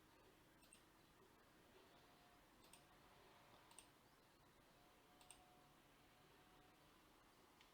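Near silence with about four faint, sharp clicks from a computer's controls being worked.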